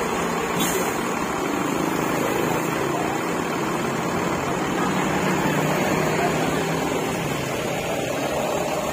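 Front-engined Mercedes-Benz coach's diesel engine idling steadily close by, an even hum.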